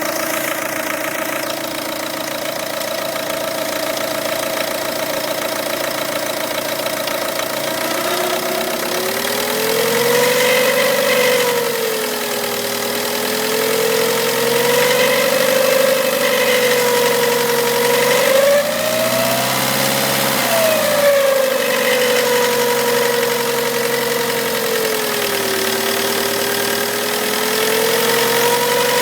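2003 Peugeot 206 2.0 HDi diesel engine running hot with a strange half-rubbing, half-whistling, half-clicking noise. The whistle is steady at first, then wavers slowly up and down in pitch from about 8 s on. The noise persists even without the accessory belt, just after a new timing belt and damper pulley were fitted, and the owner suspects the water pump or the damper pulley.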